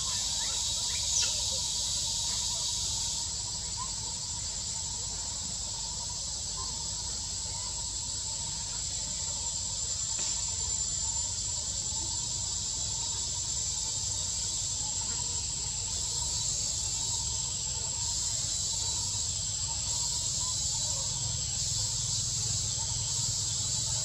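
Steady high-pitched insect chorus, with a fainter steady tone lower down and a low rumble underneath; part of the chorus drops out about three seconds in.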